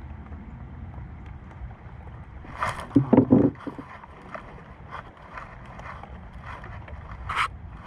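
Knocks and thuds in a small fishing boat, a loud cluster about three seconds in and a sharper click near the end, over a steady low rumble.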